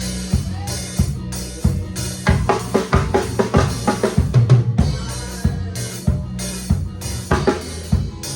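Drum kit playing a steady groove over sustained bass notes, with a run of quick, dense hits, a drum fill, in the middle.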